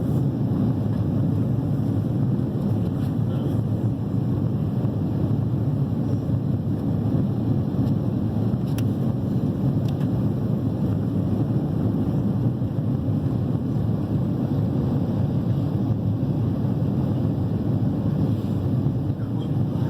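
Steady low noise of a jet airliner's engines and airflow, heard inside the cabin.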